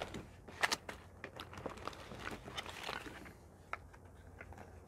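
Ration packets in plastic and foil wrappers being handled and set down: faint rustling and crinkling with a few light knocks, dying away after about three seconds.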